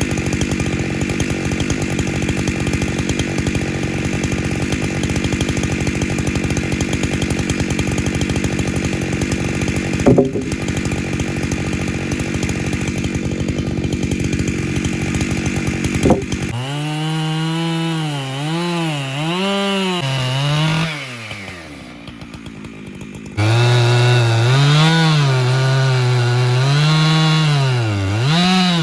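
Husqvarna 592XP two-stroke chainsaw on an Alaskan chainsaw mill cutting through a log under load, with a couple of sharp cracks along the way. About 16 seconds in its engine note becomes clear and wavers up and down in pitch, sags and quietens briefly, then comes back loud about 23 seconds in.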